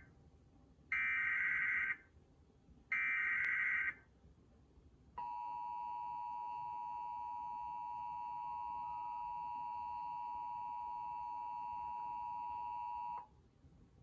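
Emergency Alert System alert heard through a television's speaker: the last two of the three data-header bursts, each about a second long and two seconds apart, then the steady two-tone attention signal held for about eight seconds before it cuts off. It heralds a severe thunderstorm warning.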